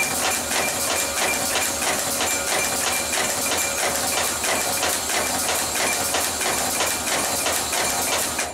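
Power contactors of a V43 electric locomotive's tap changer clacking open and shut in quick succession, several sharp clicks a second, over a steady mechanical whine. The switchgear is unpowered, so the contacts make and break without arcing.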